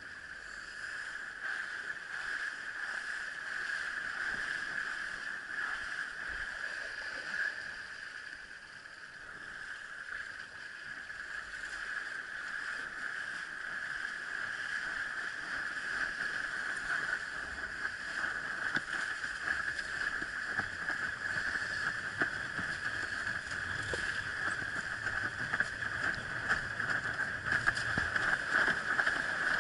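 A windsurf board sailing across choppy lake water: a steady rush of wind and water that grows louder as the board picks up speed toward planing. There are more frequent slaps and jolts from the chop in the last several seconds.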